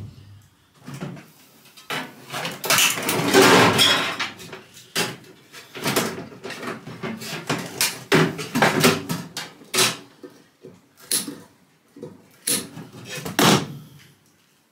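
Sheet-metal parts of a microwave oven being handled: a string of metal clanks, knocks and rattles, with a longer stretch of clattering and scraping about two to four seconds in.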